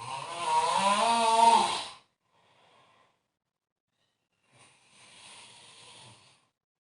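A person snoring in deep sleep: one loud, rattling snore about two seconds long with a wavering, goat-like bleat, then a faint breath and a second, much quieter snore near the end.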